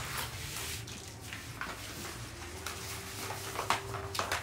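Faint rustling and scraping with a few light knocks near the end, from handling a cardboard-wrapped picture frame and the packing around it.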